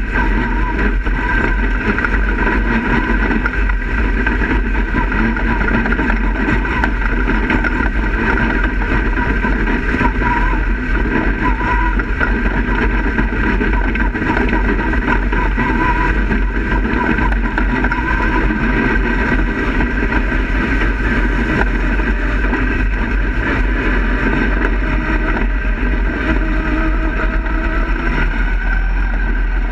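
Dirt-track race car's engine running steadily under the driver, heard from inside the cockpit, with no sharp revving or impacts.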